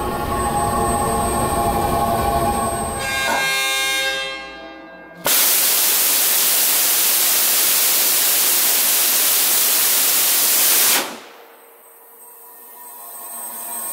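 10 kN hybrid rocket engine firing on a test stand: a loud, even roar that starts abruptly about five seconds in and cuts off suddenly about six seconds later. Background music plays before and after the burn.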